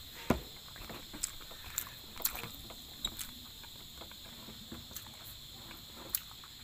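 Eating sounds: a scattered handful of short clicks and smacks from chewing and from fingers picking rice off a plate, the loudest about a third of a second in. A steady faint high hiss lies underneath.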